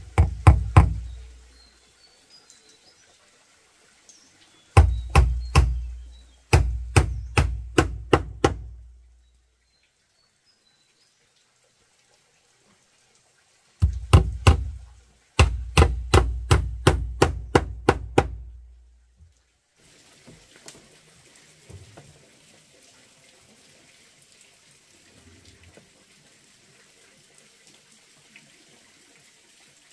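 Hammering on wood: five bursts of sharp blows, three to nine strikes each at about three to four a second. After about twenty seconds only faint steady noise remains.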